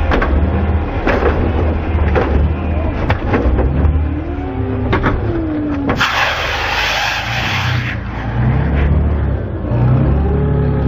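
Jeep Liberty's engine revving under load as it climbs over logs and dirt mounds, with several sharp knocks as the truck bangs over the obstacles. About six seconds in, a hissing rush lasting about two seconds as the tires spin and throw dirt.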